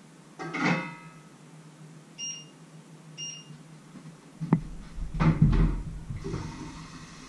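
Kitchen handling noises: a pot or lid clanks and rings briefly, then the electric hob's touch controls beep twice, about a second apart. Knocks and heavy thumps of cookware follow, the loudest near the middle. Near the end, tap water runs steadily into the sink.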